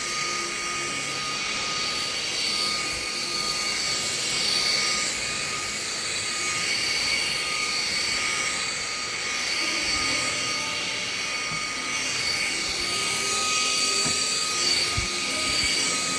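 TMA 400 W stick vacuum cleaner running steadily: a high-pitched motor whine over rushing air, swelling and easing a little in loudness, with a few light knocks near the end.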